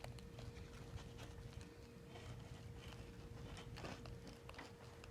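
Rain pattering faintly on a garage roof as a storm sets in, heard as a soft hiss with scattered irregular taps.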